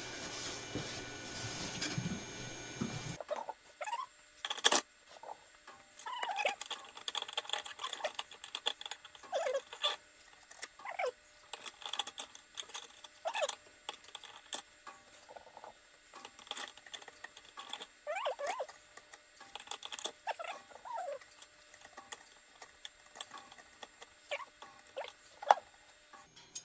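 10R80 transmission parts being handled and fitted: scattered light metal clicks and clinks with short squeaky chirps, the sound sped up. A steady hiss for about the first three seconds cuts out abruptly.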